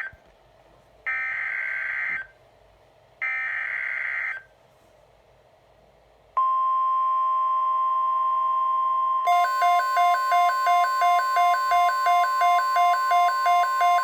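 NOAA Weather Radio / EAS alert signalling. Three buzzing, warbling bursts of SAME digital header data, each about a second long with one-second gaps, come first. About six seconds in, the steady 1050 Hz weather radio warning alarm tone starts. About three seconds later a pulsing alarm beep at about two a second joins over it.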